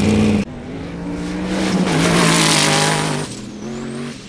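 1800 hp twin-turbo sand rail engine at full throttle, launching across sand. The loud engine sound cuts off abruptly about half a second in. It is followed by engine notes under a high whine that rises and falls, typical of turbo spool, and a loud rushing hiss in the middle that fades just after three seconds.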